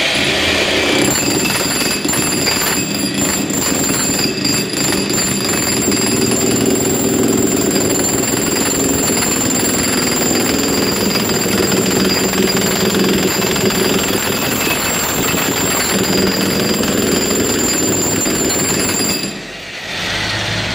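Corded electric demolition hammer (rotomartillo) with a chisel bit, hammering continuously against the wall of a plastic manhole cone in an impact-resistance test. It starts about a second in and stops about 19 s in.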